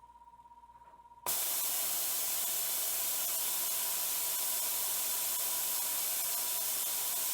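A spin rinse dryer going into its purge cycle: about a second in, a loud steady hiss of purge gas switches on abruptly, over a faint steady tone that runs throughout.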